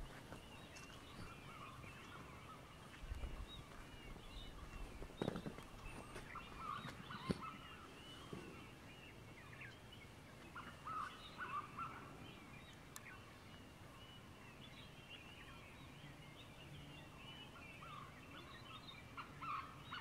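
Dawn chorus of wild birds: many overlapping chirps and calls throughout, with a few sharp knocks about five and seven seconds in.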